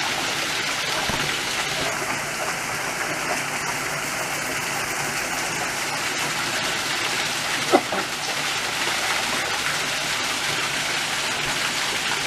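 Steady rushing of a forest stream flowing over rocks into a shallow pool. About eight seconds in, one short pitched sound stands out above it.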